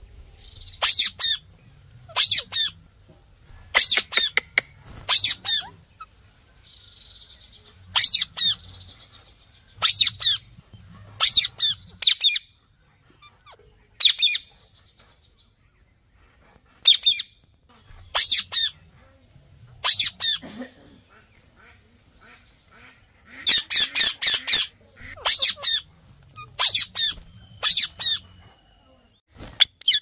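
Green Indian ringneck parrot (rose-ringed parakeet) giving loud, short, high-pitched squawks, one or two at a time every second or so, with a softer buzzy chatter between them. About two-thirds of the way through it lets out a quick run of about six calls.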